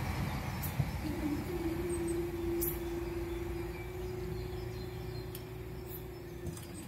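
Level-crossing barrier mechanism running with a steady hum as the booms rise to reopen the crossing, starting about a second in and stopping just before the end. A few light clicks come over a low rumble.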